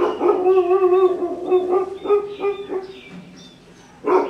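Injured puppy crying out in pain while being handled: a sudden, wavering yelping cry lasting about three seconds, then a fresh yelp near the end.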